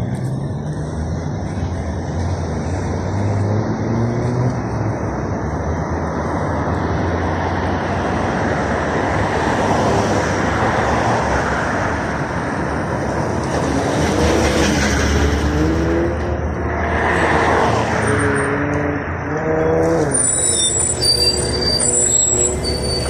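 City road traffic passing, with vehicle engines rising and falling as they go by. Near the end a LiAZ 5292.67 city bus is at the stop and high-pitched squeals come in and out.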